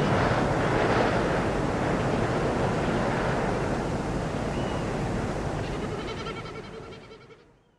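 Spring morning outdoor ambience: a steady rushing noise with a few faint bird chirps near the end. It all fades out to silence over the last two seconds.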